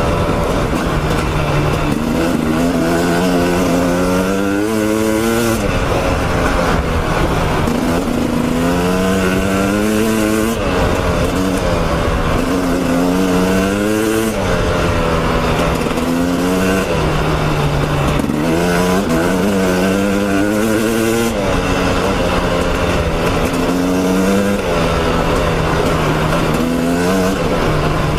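Dirt bike engine revving up and backing off again and again as it is ridden around a dirt track, its pitch climbing for a couple of seconds and then dropping, about seven times.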